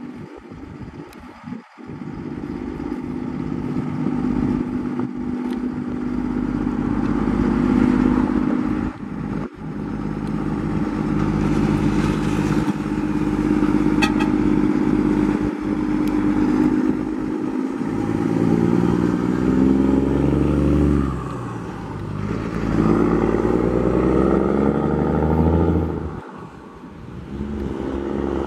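Scania truck's diesel engine pulling away and accelerating. In the last third the engine note rises, drops back twice as it changes gear, and rises again each time.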